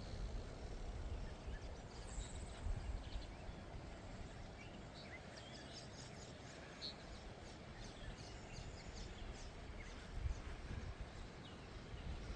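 Outdoor ambience: a run of short, high bird chirps, thickest from about four to ten seconds in, over a low, uneven rumbling noise.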